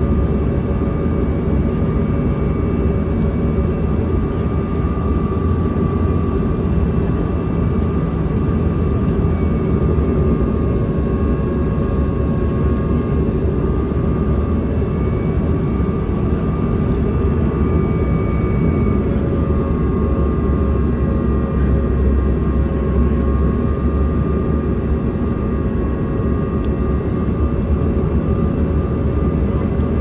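Cabin noise inside a CRJ-200 regional jet on approach: a steady low rush of airflow and engine noise with a few steady high whines from its rear-mounted GE CF34 turbofans.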